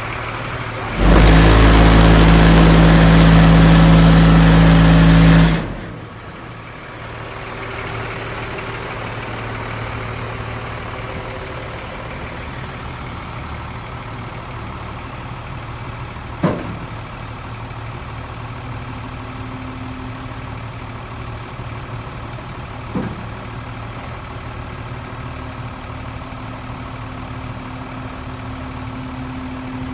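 Sterling Acterra dump truck's diesel engine idling. Near the start a very loud, even-pitched blast lasts about four and a half seconds, and two short sharp clicks come later.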